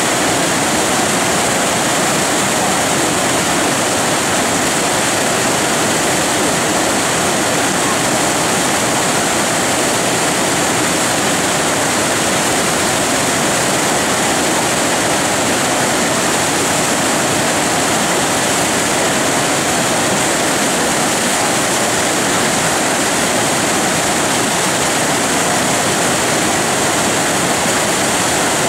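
Tidal rapids running at an extra-large flood tide: a steady rush of whitewater from a breaking standing wave.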